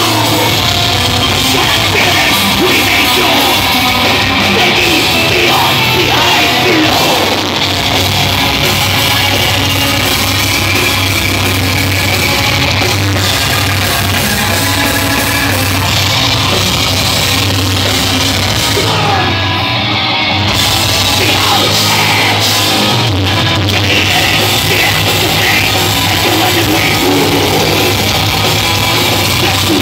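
Black metal band playing live, loud and dense: distorted guitars, drum kit and harsh yelled vocals.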